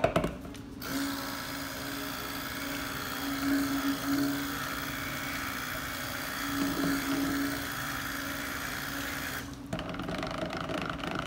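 Stick (immersion) blender running in a plastic pitcher of cold process soap batter, mixing oils and lye water to emulsion. It starts about a second in, runs steadily with a constant hum, swells slightly twice, and stops near the end.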